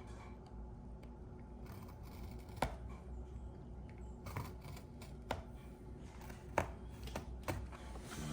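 Hand cutting tool snipping through a sheet of gel: about six sharp clicks and snips at irregular intervals, starting a couple of seconds in, over a low steady hum.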